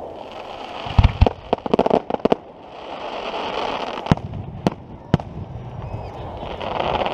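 Fireworks going off: a couple of sharp bangs about a second in, then a quick run of crackling pops. A rushing hiss swells and fades, followed by three single sharp bangs in quick succession and another rising hiss near the end.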